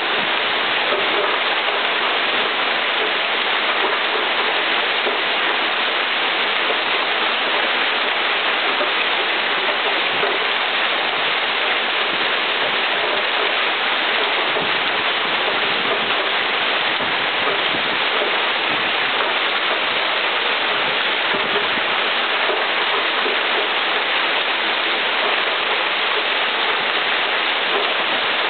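Heavy rain and hail falling hard in a severe thunderstorm: a loud, steady, dense hiss that does not let up.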